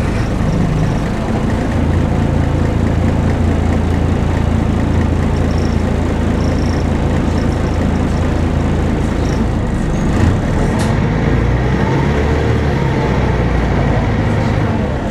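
Volvo B10BLE bus's rear-mounted six-cylinder diesel engine running steadily, heard from inside the passenger saloon as a low drone. There is a short click about eleven seconds in.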